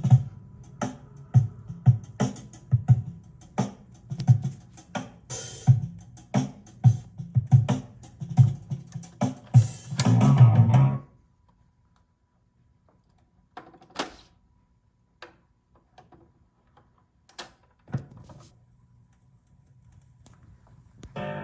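Music from a vinyl record playing on a BSR C129 turntable through an amplifier, with a regular beat of strong low strokes that stops abruptly about eleven seconds in. A few separate clicks and thumps follow in near quiet, and the music starts again at the very end.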